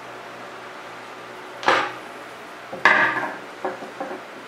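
Metal clinks and a clatter as a screwdriver works the glass-retaining hardware off a cast iron wood stove door. There is one sharp knock about a second and a half in, a louder ringing clatter about three seconds in, then two lighter knocks.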